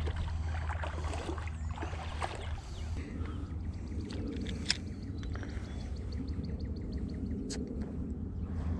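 Water sloshing and splashing as someone wades through a shallow creek, over a steady low rumble, with scattered clicks and a run of light, evenly spaced ticks in the middle.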